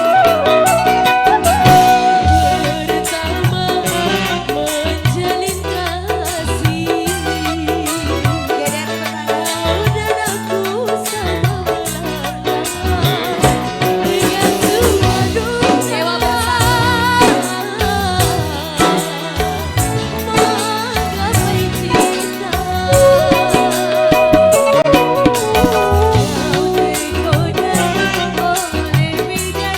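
Indonesian pop song with a steady drum and percussion beat and a wavering, ornamented melody line, most likely the singer's voice.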